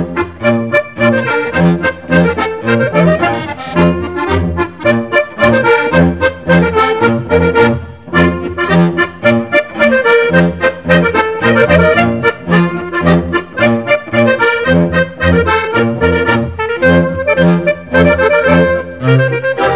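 Instrumental background music with a steady bass beat.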